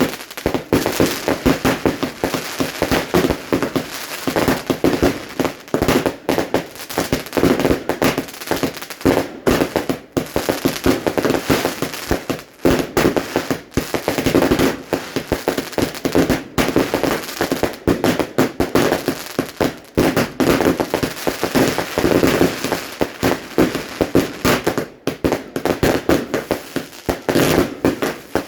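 Fireworks going off in a rapid, continuous string of cracks and pops, many a second, with no let-up.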